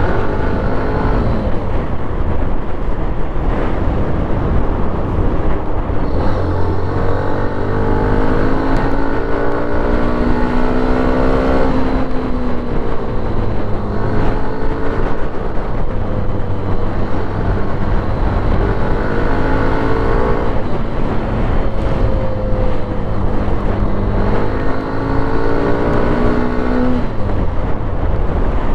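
Hero Xtreme 125R's 125 cc single-cylinder engine revving, its pitch climbing and falling several times over a steady low exhaust rumble.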